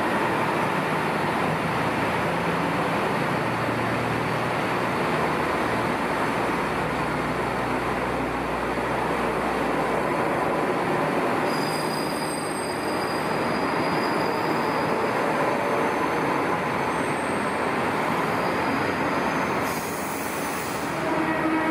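JNR-liveried KiHa diesel railcar running at a station platform, a steady mix of engine and running noise. Thin high squealing tones join from about halfway through.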